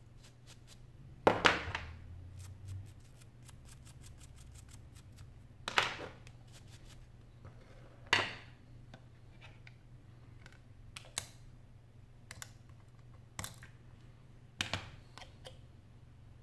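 Sharp clicks and taps of small phone parts and tools being handled and set down on a work mat during an iPhone 6 teardown. The loudest comes about a second in, and half a dozen more follow at irregular intervals. A run of faint rapid ticks fills the first few seconds, over a faint steady hum.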